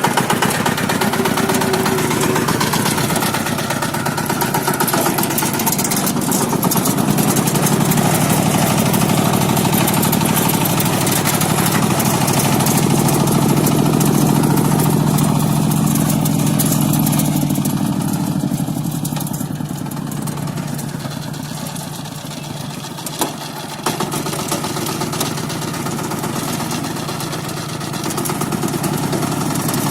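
Engine running steadily under work, its note rising and falling. It eases off for a stretch about two-thirds through and picks up again near the end.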